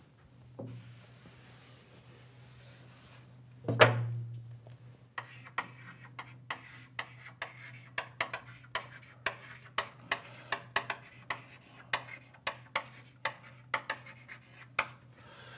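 Writing on a lecture board: a long run of short scraping strokes, a few a second, with a single knock about four seconds in, over a low steady hum.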